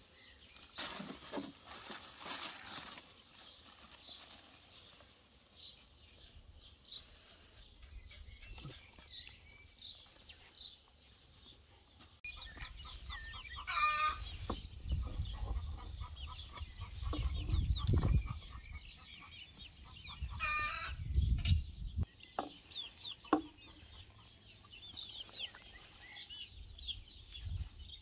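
Chickens clucking, with small birds chirping throughout and two louder, longer calls about halfway through and again a few seconds later. A low rumbling noise runs under the middle part.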